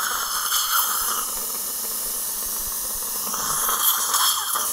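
Surgical suction tip hissing steadily in the mouth during a wisdom tooth extraction, growing louder twice, near the start and again near the end, as it draws up fluid.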